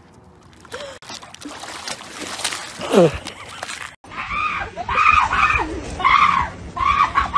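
Faint background noise with one short falling cry about three seconds in, then, from about four seconds in, loud repeated high-pitched screaming by people.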